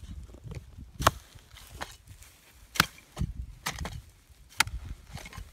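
Three sharp knocks, spaced about one and a half to two seconds apart, with softer low thuds in between.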